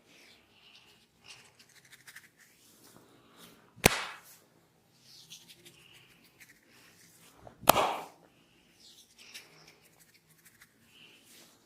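Two loud, sharp slaps about four seconds apart, the barber's hands striking during a head massage, with faint rubbing of hands on hair and skin between them.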